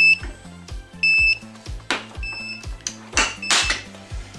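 A bait boat's remote control beeping: a short high beep about every second, which signals that the handset has no link to the boat. Background music plays underneath, and there are two brief rustles near the middle.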